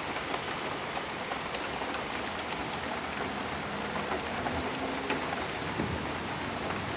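Heavy rain pouring down steadily: a dense, even hiss of drops hitting the ground and nearby surfaces, with small sharp ticks of individual drops.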